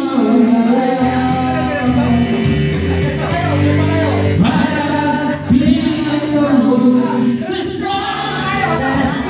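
A woman singing through a handheld microphone over recorded backing music.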